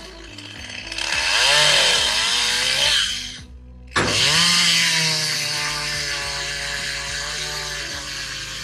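Chainsaw running hard in a cut, its pitch sagging and recovering under load. It breaks off abruptly for about half a second, comes back loud with the pitch climbing, then runs steady.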